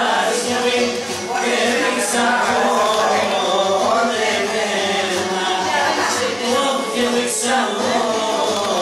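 Pontic Greek folk dance music: voices singing a dance song over the music, steady throughout.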